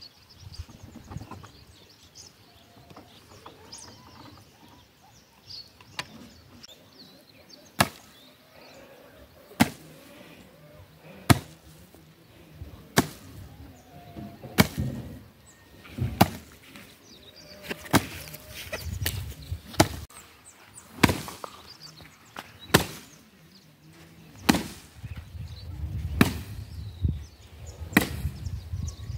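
A long wooden pole beating a sack of dried maize cobs, which threshes the kernels off the cobs. The strikes are single sharp whacks that begin about six seconds in and come roughly every one and a half to two seconds.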